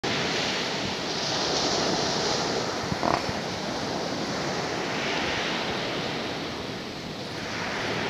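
Small sea waves breaking and washing up a pebbly beach, the surf swelling and easing twice. A short bump is heard about three seconds in.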